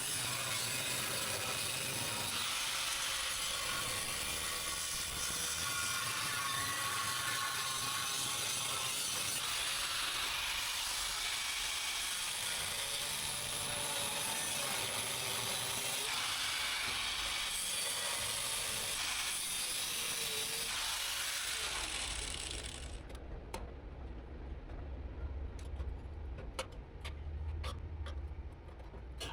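A power tool cutting the truck's sheet-metal bedside, running steadily and then stopping suddenly a few seconds before the end, followed by a few light clicks and knocks.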